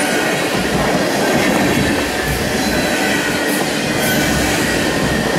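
Freight train tank cars rolling past close by: steel wheels on the rails, a steady rumble with a faint high squeal from the wheels.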